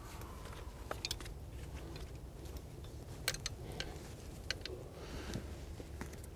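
Faint rustling of a ghillie suit close to the microphone, with a few scattered sharp ticks.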